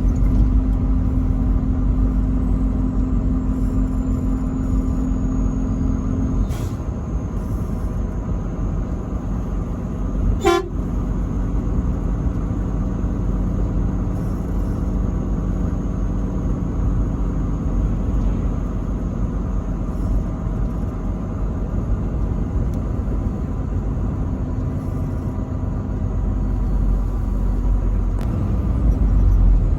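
Truck horn held in one long blast that cuts off about six seconds in, over the steady low rumble of the moving truck. A single sharp click about ten seconds in.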